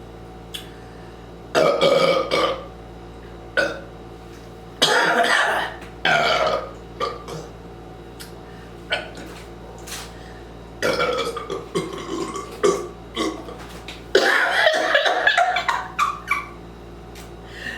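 A person belching loudly from a carbonated soda (Diet Pepsi), about four long, rough burps, the last one the longest at around three seconds.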